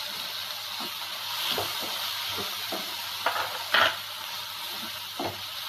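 Chopped tomatoes tipped into a hot frying pan of onions, ginger and garlic, sizzling steadily while a wooden spatula stirs and scrapes the pan. A few short knocks of the spatula against the pan, the loudest nearly four seconds in.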